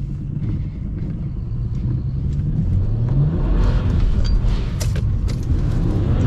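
BMW 335i's turbocharged straight-six being revved while the car is swung side to side in a manji drift on a wet road. The engine pitch climbs about two and a half to three seconds in, and a louder hiss of tyres and road noise follows. The driver takes it for too much throttle.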